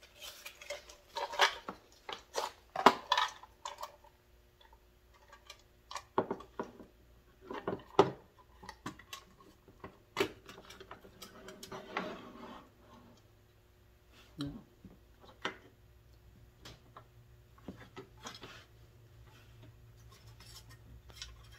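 Drill bit sets and their boxes being handled on a bench: irregular clicks and light metal clatter, busiest over the first dozen seconds and then only an occasional click.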